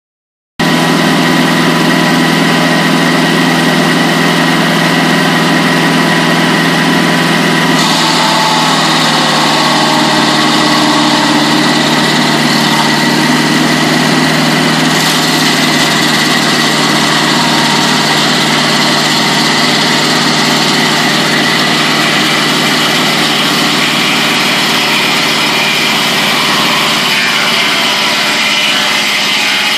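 Mobile Dimension sawmill running under engine power: a steady, even-pitched engine drone that starts suddenly. A brighter hiss joins about eight seconds in, typical of the blade working through wood.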